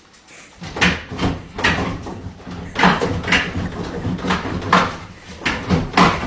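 A broken microwave oven being banged and slammed over and over, loud knocks about two a second with a rattling ring after each.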